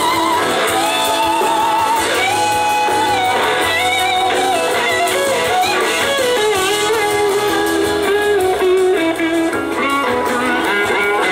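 Live rock band playing, led by an electric slide-guitar solo on a Gibson SG whose notes glide between pitches and waver with vibrato, over drums, bass and a second electric guitar.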